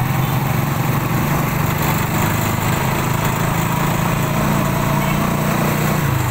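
Small motorcycle engine running steadily with a low hum, heard from on board as the vehicle rides along a street.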